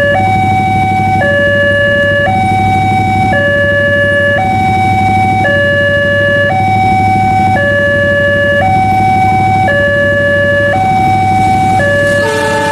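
Railway level-crossing warning alarm sounding while the crossing is closed: an electronic two-tone signal alternating between a higher and a lower note, each held about a second. Near the end, an approaching train's horn joins in.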